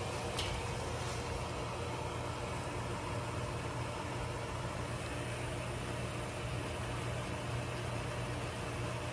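Electric motor-driven equipment running: a steady low mains hum under an even hiss.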